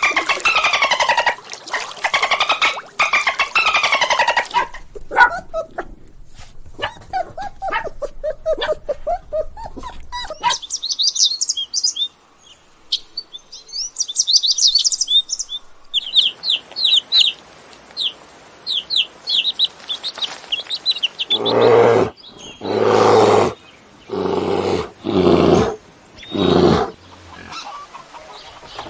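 A run of animal calls: a goat bleating at the start, then birds chirping in quick high notes through the middle, then a series of five or six loud, low calls near the end.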